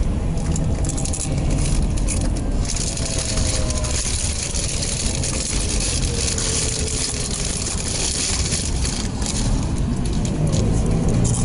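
Cabin noise of a city bus under way at speed: steady engine and road rumble with strong tyre and wind hiss and light rattling of the body, and faint whines that slide slowly down in pitch.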